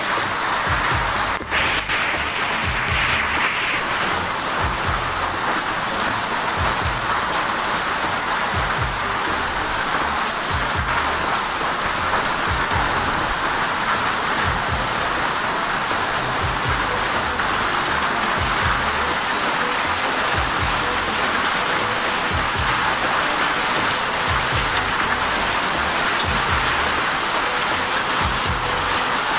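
Heavy rain mixed with hail falling steadily on a wet concrete courtyard: a dense, even hiss with many scattered low knocks.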